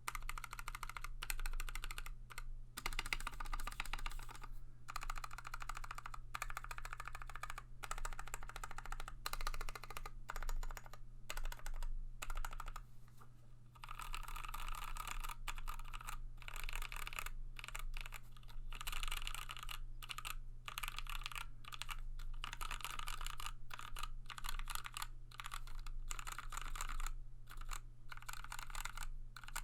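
Fast typing on a Tofu65 mechanical keyboard with lubed Milky Gateron Yellow linear switches, an aluminium case and plate, and PBT keycaps: a dense, continuous clatter of keystrokes with brief pauses near the start and about halfway through.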